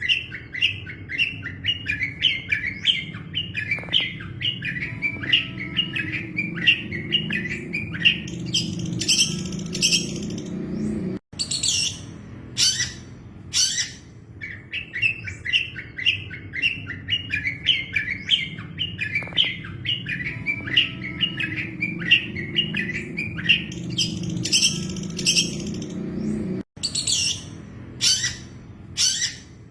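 Long-tailed shrike (cendet) song: a fast run of chirping notes followed by a few loud, harsh notes. The same phrase repeats twice, with a sudden break about 11 seconds in and again near the end, as in a looped recording.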